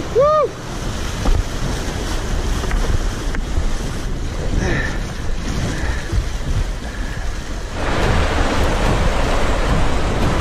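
Rushing whitewater of a steep, rain-swollen creek, a steady hiss that grows louder about eight seconds in. A short whistled call that rises and falls is heard right at the start.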